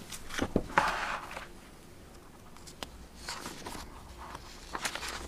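A paper document being handled: a few light knocks and clicks, then a brief rustle about a second in, with more small clicks later.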